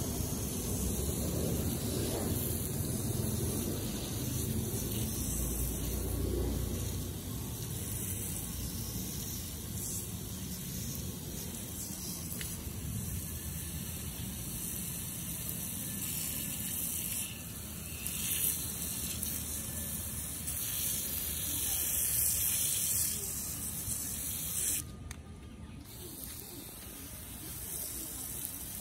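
Water spraying from a hose watering wand onto potted succulents and their gravel topping: a steady hiss of spray that drops out briefly near the end.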